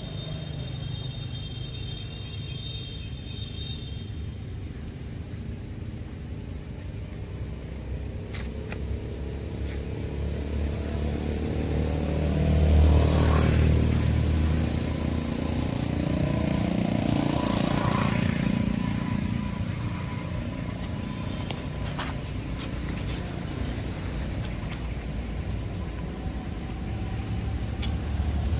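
Low rumble of passing motor vehicles, swelling and fading twice as vehicles go by, loudest about halfway through. A high steady buzz sounds in the first few seconds.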